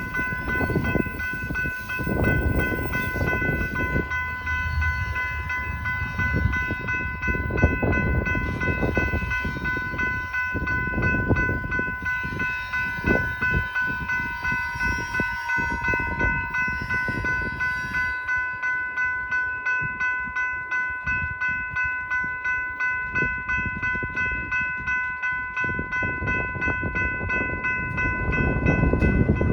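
A train rolling past in strong wind, with the wind buffeting the microphone and a steady high ringing tone throughout. About two-thirds of the way in, the sound settles into a regular clicking beat, about two a second, as the cars go by.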